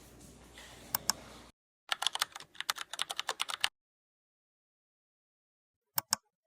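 A run of quick, sharp clicks like typing on a keyboard, lasting about two seconds. A pair of clicks comes about a second in and another pair near the end, with dead silence between.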